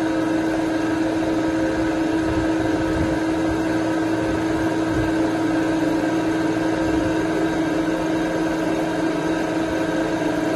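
Hydraulic power unit of a plywood cold press running: electric motor and pump giving a steady hum with one strong low tone.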